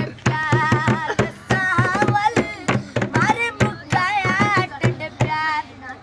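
A boy singing in a high, wavering voice with vibrato while beating a plastic jerrycan as a hand drum: quick, sharp strokes and deep thuds under the song.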